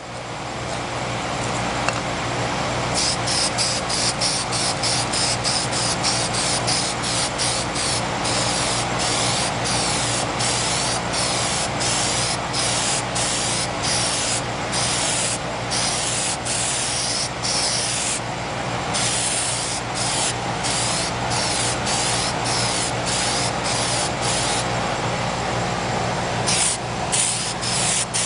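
Aerosol can of Rust-Oleum chalkboard spray paint hissing as paint is sprayed onto a bamboo cutting board, the hiss pulsing rapidly from a few seconds in.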